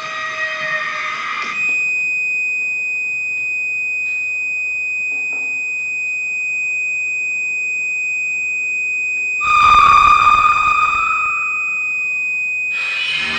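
Contemporary chamber music for violin, saxophone, accordion and percussion with electronics: a single high, steady, pure-sounding tone held for many seconds. About nine seconds in a louder, rougher lower note joins for about two seconds, and near the end a dense, loud cluster of sounds enters.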